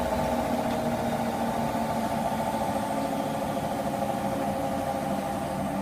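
Washing machine on its spin cycle, giving off a steady, even hum.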